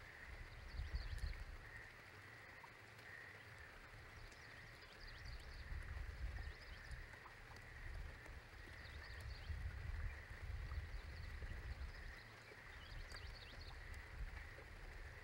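Faint outdoor ambience: wind gusts rumbling on the microphone, under a steady faint high chirring and a few scattered faint high chirps.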